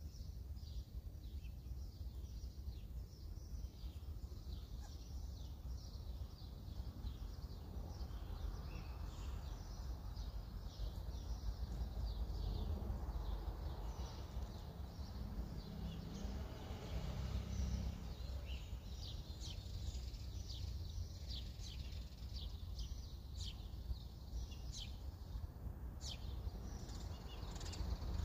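Garden ambience: small birds chirping in short, repeated high calls, more often in the second half, over a steady low rumble. A broader swell of noise rises and falls in the middle.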